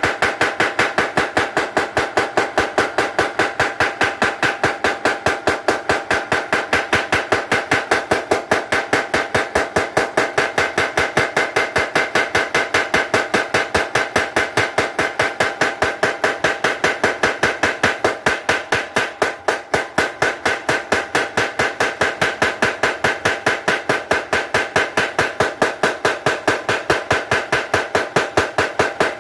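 Mechanical blacksmith's power hammer striking steel in a fast, even run of blows, several a second, each with a metallic ring; the blows ease briefly about two-thirds of the way through.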